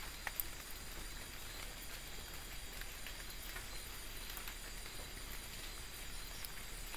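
Steady high-pitched chorus of night insects, with scattered faint clicks and a single sharp click about half a second in. The toad is not calling.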